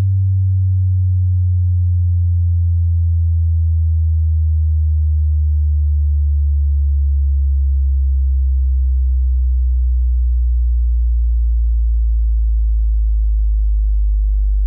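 Loud low-bass sine test tone gliding slowly and evenly downward in pitch, with faint overtones above it.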